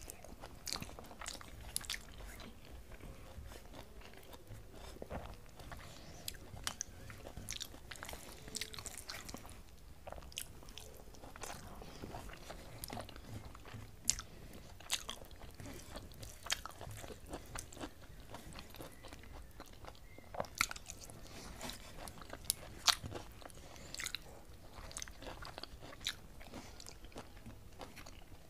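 Close-up sounds of eating with the fingers: chewing and wet mouth clicks on rice with fried beans and potato, and fingers gathering food on a steel plate. Irregular sharp clicks throughout, a few of them louder.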